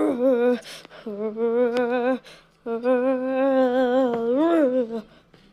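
A man's voice, altered by a voice filter, giving long drawn-out powering-up cries in three held stretches, the last and longest swelling higher near the end.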